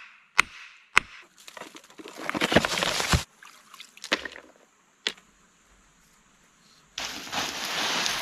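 Two sharp wooden knocks about half a second apart, then a couple of seconds of clattering and scraping of wood and stones, with one more knock about five seconds in. Near the end comes a steady rain-like hiss of gravel and sand being poured onto wet stones.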